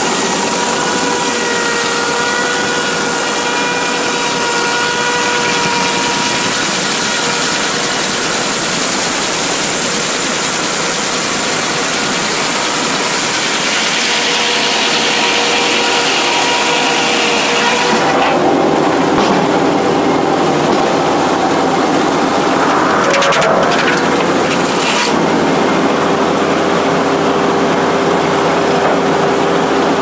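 Frick 00 circular sawmill blade cutting through a southern yellow pine log: a loud, steady high hiss of the cut with a ringing blade tone. About eighteen seconds in the cut ends and the hiss drops away, leaving the mill running with a steadier hum and a few sharp knocks.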